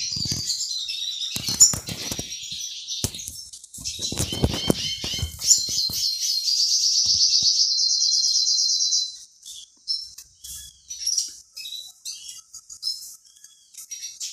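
Small songbirds chirping and twittering together, busy at first, with a fast, even trill about eight seconds in, then thinning to scattered single chirps. A few dull knocks in the first half.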